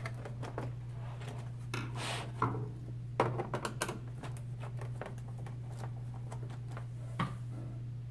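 Screwdriver prying at the clip tabs of a plastic computer keyboard case: irregular clicks, knocks and scrapes of the metal tool on hard plastic, in clusters with gaps between, over a steady low hum.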